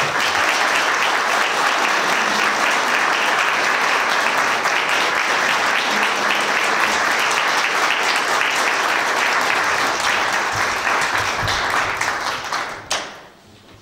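Audience applauding steadily for about twelve seconds, dying away near the end.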